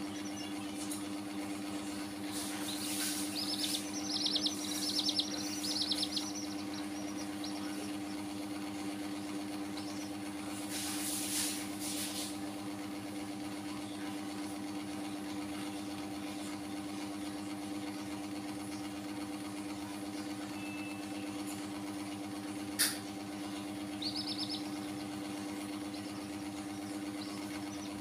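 A steady mechanical hum with several fixed tones, under short bursts of rapid high peeping from chicks a few seconds in and again near the end. One sharp click sounds near the end.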